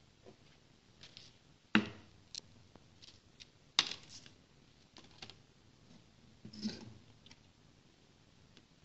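Handling noise from a small stepper motor and its wire leads being set down and moved about on a tabletop: scattered light clicks and taps, with two sharper knocks about two and four seconds in and a brief rustle near seven seconds.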